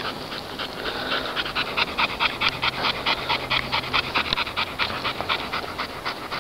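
Dog panting hard and fast in an even rhythm, tired out after running.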